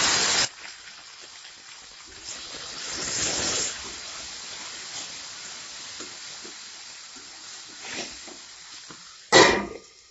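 Green peas sizzling in hot oil in an aluminium kadai: a loud hiss as they hit the oil that dies down after about half a second, then a steady fainter sizzle that swells once while they are stirred. Near the end a steel lid clatters onto the pan, and the sizzle goes muffled under it.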